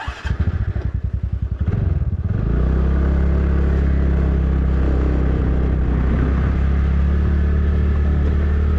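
Motorcycle engine starting: about two seconds of uneven low pulsing as it catches, then running at a steady, even note.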